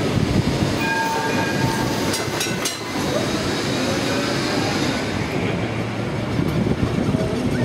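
Heritage Blackpool tram running along the promenade tracks: a steady rumble of wheels and running gear on the rails. A brief faint whine comes about a second in, and a short run of clicks about two and a half seconds in.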